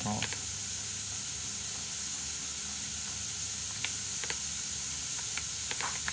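Steady background hiss with a few sparse computer keyboard key clicks, a small cluster of them near the end.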